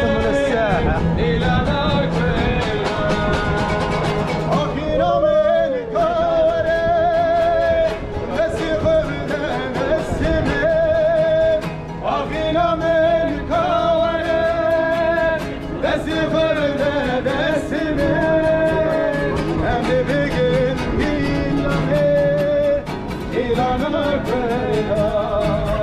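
Street band of young men singing a melody with a strong vibrato, accompanied by strummed acoustic guitars keeping a steady rhythm.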